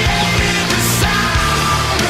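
Heavy rock music with distorted guitar and drums, loud and continuous.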